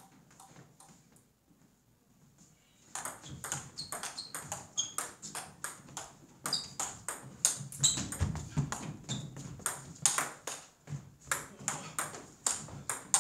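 Table tennis rally: the celluloid-type ball clicking sharply off rubber-faced bats and a DONIC tabletop, several hits a second. A few soft clicks come first, then the fast exchange starts about three seconds in and keeps going.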